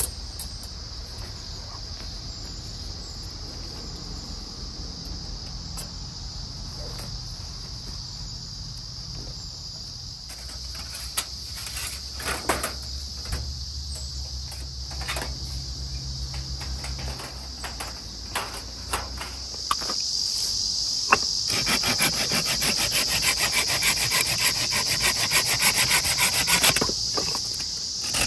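Insects chirring steadily in high pitch. Wood is knocked and handled, then about twenty seconds in a hand saw rasps rapidly through firewood for several seconds.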